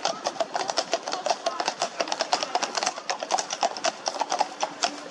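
Hooves of a group of horses clip-clopping as riders pass, a dense, uneven run of hoofbeats several a second.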